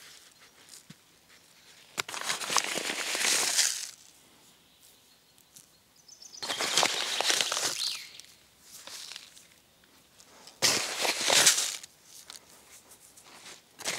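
A plastic bag of grass seed rustling and crinkling as handfuls of seed are scooped out and scattered over bare soil, in three bursts of a second or two, with a fourth starting at the end.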